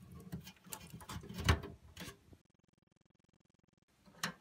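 A PC power supply's SATA power plug and its cables being handled and pushed onto a hard drive: a run of small plastic clicks and rustles, the loudest about a second and a half in. The sound then cuts out completely for over a second, and a sharp click comes near the end.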